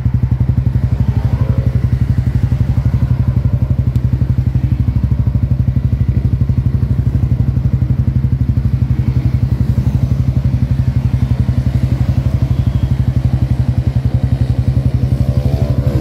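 Yamaha Sniper 155's single-cylinder four-stroke engine idling steadily through an MVR1 adjustable aftermarket muffler, a rapid even low exhaust pulse with no revving.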